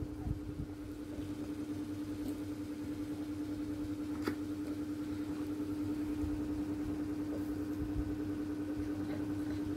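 A steady machine hum with a slight even pulsing in loudness, and a single faint click about four seconds in.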